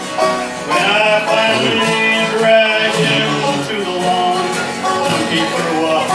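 Live bluegrass music: acoustic guitar, mandolin and banjo playing, with male singing.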